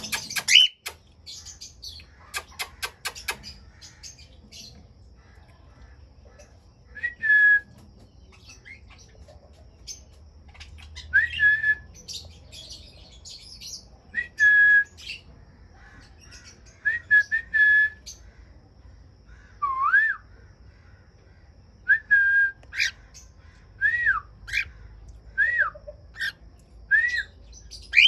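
Aviary birds calling: quick chirps and clicks at first, then a run of short whistled notes that rise and fall, repeated about once a second in the second half.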